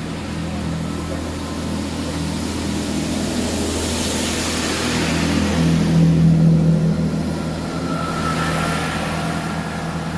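A Class 165 diesel multiple unit runs into the platform, its underfloor diesel engines droning steadily. A rushing noise of the coaches passing swells to a peak about six seconds in and then eases as the train slows, with a faint high tone around eight seconds in.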